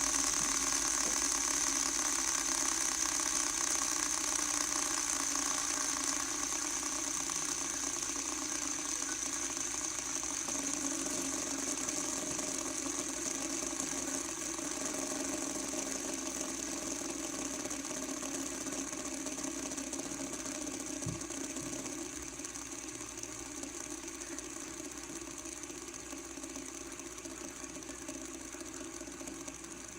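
LED light-up fidget spinner spinning on a hard table, a steady whirring rattle that is way loud on the table and slowly gets quieter.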